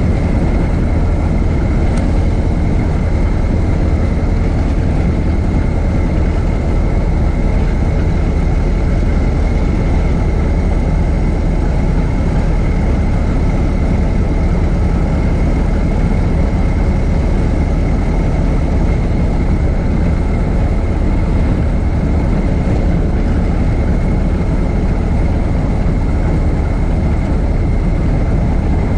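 A 1926 Ford Model T's four-cylinder engine running steadily while the car is driven. It gives an even low rumble with a thin steady high tone above it.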